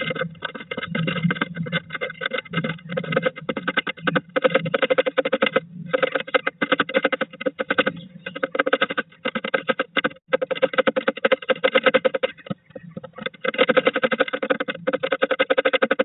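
Blue tit hammering its beak rapidly into the wooden floor of a nest box. The taps come in fast runs that ring in the small box, with brief pauses a few times.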